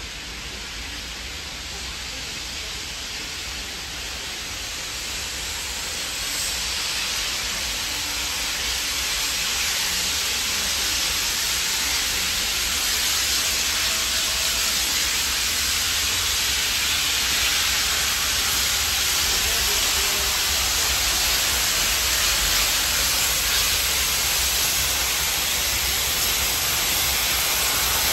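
Steam hissing from Beyer-Garratt steam locomotive 6029's cylinder drain cocks as it rolls slowly in, a steady hiss that grows gradually louder as the engine nears.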